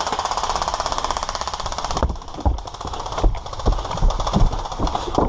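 An airsoft gun firing a full-auto burst: a rapid, even stream of shots lasting about two seconds. It is followed by irregular thumps and clicks.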